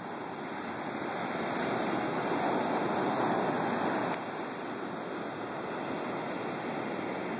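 Ocean surf from storm-surge waves breaking and washing up a sandy beach: a steady rushing wash that swells and eases. About four seconds in there is a brief click, after which it is a little quieter.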